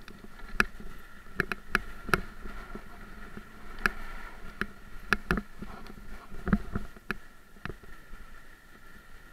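Electric-bike ride over a bumpy sandy dirt track: the assist motor whines steadily while the bike and camera mount rattle with irregular sharp knocks and clicks as the tyres hit ruts and bumps.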